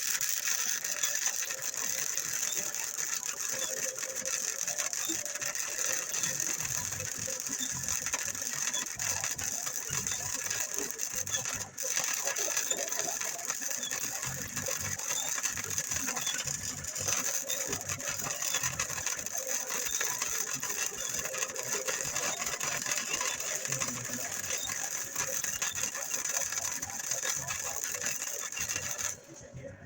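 Electric arc welding on steel: a steady, dense crackle of the welding arc held for nearly half a minute. It breaks off for a moment about twelve seconds in and stops abruptly near the end.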